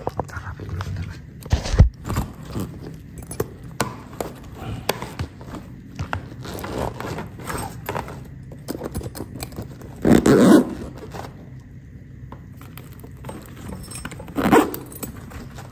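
Hands fitting a black zippered fabric bag to an electric bike's handlebar: scraping, clicking and rattling handling noise, with a sharp knock about two seconds in and two louder rustling bursts near ten and fourteen seconds.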